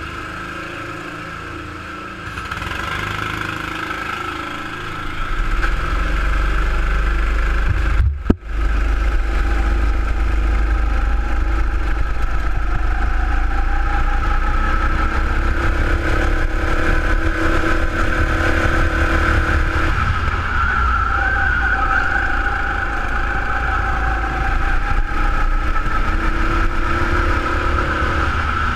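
Sodi RX7 rental go-kart's single-cylinder four-stroke engine, heard from on board, pulling away and running hard around the track, its pitch rising and falling with throttle through the corners over a heavy low rumble. It gets louder in steps over the first few seconds and cuts out briefly about eight seconds in.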